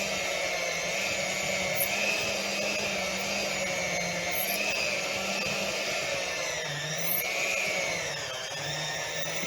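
Electric hand mixer running, its beaters working through a thick cream cheese and sugar mixture; a steady motor whine whose pitch sags briefly a couple of times as the beaters meet more resistance.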